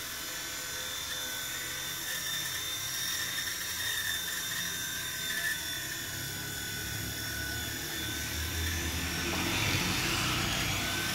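WLtoys V911 micro RC helicopter in flight, its small electric motors and spinning rotor giving a steady high whine over a low rotor hum; the whine shifts in pitch near the end as the throttle changes. It is running properly after a repair to its flybar, control board and motor.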